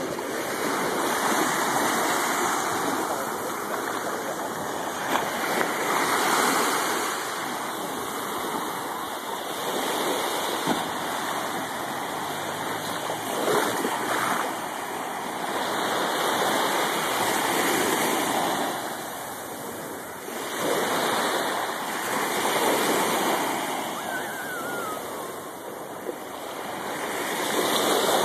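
Small waves washing onto a sandy beach, a rushing wash that swells and ebbs every few seconds.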